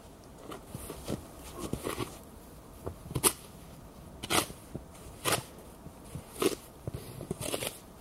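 Footsteps crunching in snow, then a small wooden board scraping and pushing snow off the ground to clear the top layer, in sharp strokes about once a second.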